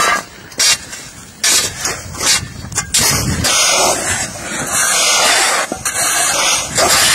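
Steel shovels scraping and chopping packed ice on pavement: several sharp separate scrapes and strikes over the first few seconds, then nearly continuous scraping from about three seconds in as the broken ice is pushed along.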